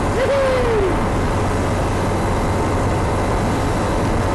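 Single-engine light propeller plane's engine and propeller running steadily, heard from inside the cockpit as the plane rolls across a grass airfield. A short falling tone sounds just after the start.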